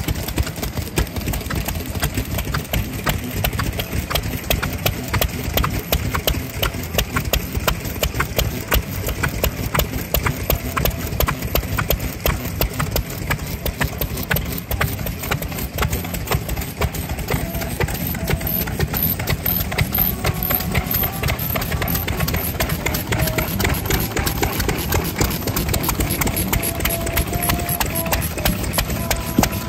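Old Japanese single-cylinder farm stationary engines (nōhatsu) idling, with a steady, rapid beat of firing strokes.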